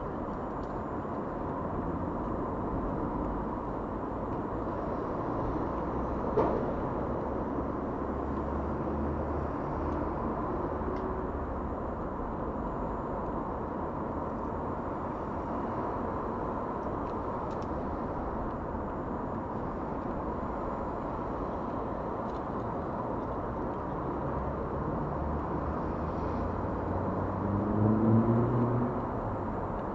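Steady hum of distant road traffic, with one vehicle's engine note rising in pitch and getting louder near the end.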